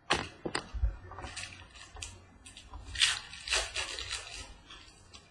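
Glossy trading cards being handled and slid over one another: a run of sharp clicks and short swishing rustles, loudest about three seconds in.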